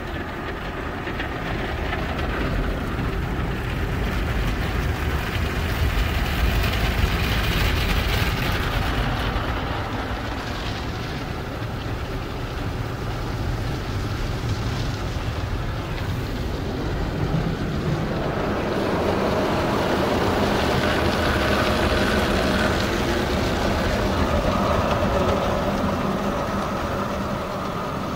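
D&S IQ soft-touch car wash at work, heard from inside the car's cabin: water spraying and spinning cloth brushes slapping and rubbing over the car, a loud steady wash of noise that swells twice. A steady machine whine joins about two-thirds of the way through.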